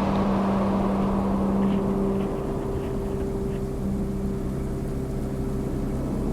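A vehicle engine running at a steady speed under road and wind rumble, its tone holding, dropping out briefly for about a second and a half, then returning.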